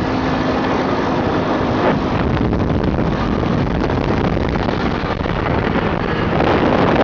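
ATV engine running under way along a gravel track, with wind buffeting the microphone.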